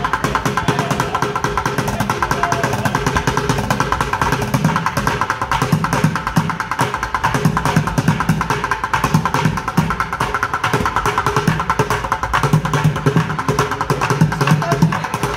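Bucket drumming: two street drummers beating fast rhythms with drumsticks on upturned plastic buckets, a dense stream of quick strikes with deeper booming hits from the bucket bottoms.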